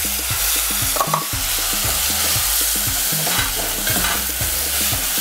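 Wooden spoon stirring tripe and green peppers in a metal pot over the heat: the stew sizzles steadily while the spoon scrapes and knocks against the pot.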